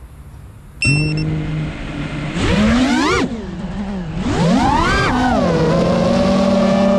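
FPV racing drone's brushless motors and propellers starting up suddenly about a second in, with a brief high beep. The whine then rises and falls in pitch twice as the throttle is punched, and settles into a steady buzz in cruising flight.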